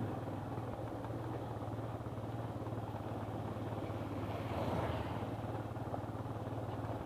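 Motorcycle engine running steadily at low revs, with a short swell of extra noise about two thirds of the way through.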